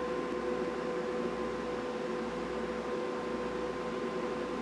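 A steady, unchanging hum with hiss, like a fan or small appliance running.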